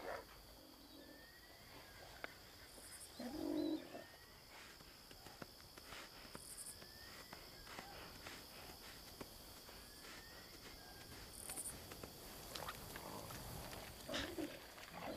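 Faint wild-savanna ambience: a steady high whine and faint short chirps rising in pitch, repeated every couple of seconds. A short animal call comes about three and a half seconds in, and several more come near the end.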